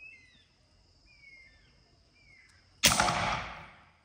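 PCP Elite pre-charged pneumatic air rifle firing an arrow: one sudden sharp shot about three seconds in, fading away over about a second.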